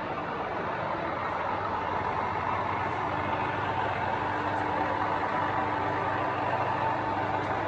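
GSP type 205 R column drilling machine running: a steady mechanical whir from its spindle drive, with a few held tones and a lower tone coming in about four seconds in.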